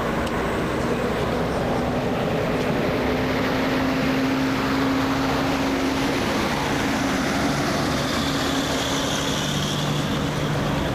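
Motor vehicle engine running steadily amid road traffic noise, a constant low hum that drops in pitch about eight seconds in.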